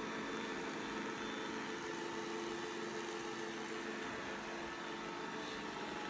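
Steady mechanical hum with a few faint steady tones, unchanging throughout.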